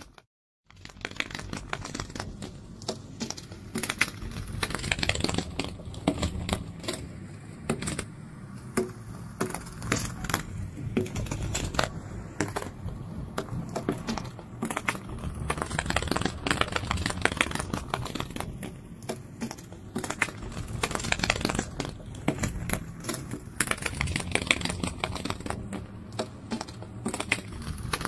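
Dense, irregular crackling and clicking, like fine crinkling or rustling. It cuts out completely for about half a second just after the start.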